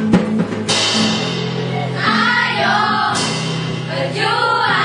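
A choir singing a melody over steady sustained accompaniment notes, the voices coming in strongest about two seconds in and again near the end.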